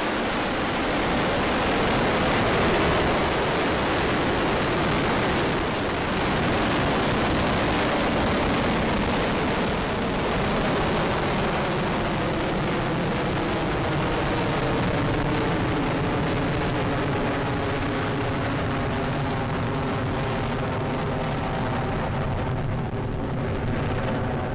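Falcon 9 Block 5 first stage lifting off and climbing on its nine Merlin engines: a loud, steady rocket-exhaust rush. Its highest frequencies thin out near the end as the rocket climbs away.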